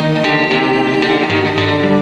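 Background music led by guitar, with notes changing at a steady rhythm.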